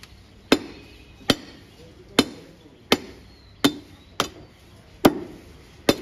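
Butcher's cleaver chopping through beef ribs on a wooden chopping block: a steady series of about eight sharp strikes, roughly one every three-quarters of a second.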